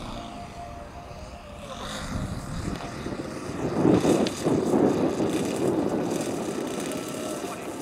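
Propeller and throttled-back engine of a radio-controlled scale Zero fighter model on its landing approach. The sound grows louder and is loudest as the model passes low over the field about four seconds in, then eases off.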